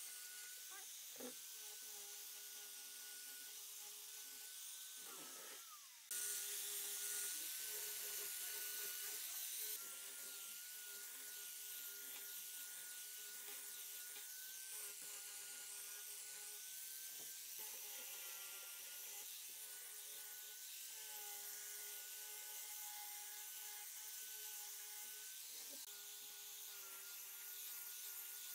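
Electric angle grinder with a sanding disc running and sanding the edges of pine boards: a steady high motor whine over the hiss of the abrasive on wood, the pitch sagging slightly as the pad is pressed in. The whine dips about five seconds in and is louder for a few seconds after about six seconds in.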